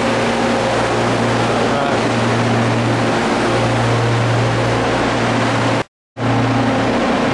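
Steady, loud hum of a ship's machinery, with a low drone and a few steady tones over a constant rush. It cuts out for a moment about six seconds in, then resumes unchanged.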